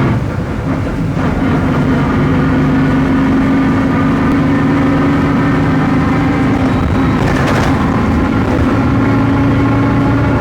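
Volksbus 17.230 OD bus under way, its MAN D0834 engine running with the differential droning: a steady held tone over the engine sound. A brief noise cuts across it about seven seconds in.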